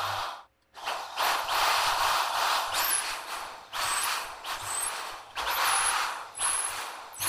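Electric drill boring holes into a wooden block with a twist bit, running in repeated bursts of one to two seconds, with a brief silence about half a second in.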